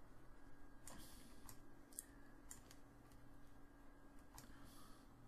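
Faint computer mouse clicks, about eight short ones scattered irregularly, over a faint steady hum.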